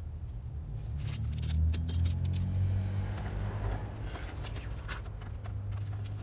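Motorcycle engine running, its low rumble rising in pitch for a while between about one and three seconds in, with scattered light clicks over it.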